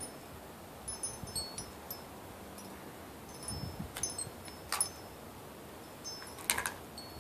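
Wind chimes tinkling faintly, a few light high rings at a time every second or so, with a few faint clicks in the second half.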